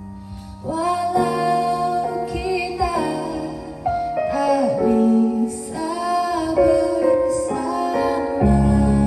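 A woman singing a slow ballad with held, wavering notes over piano or keyboard accompaniment, heard as a microphone sound test through a portable JBL PartyBox 100 speaker. A fuller, deeper accompaniment chord comes in near the end.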